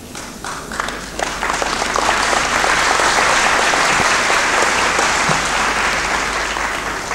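Audience applauding in a large hall: a few scattered claps at first, swelling into full, dense applause after about two seconds and dying away near the end.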